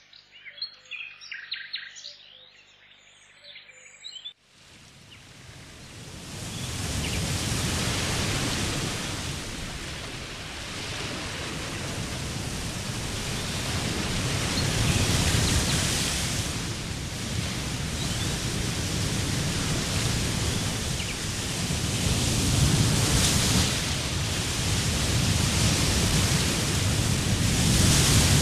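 Birds chirping for about four seconds, then the steady rush of flowing water fades in and continues, swelling and easing in loudness.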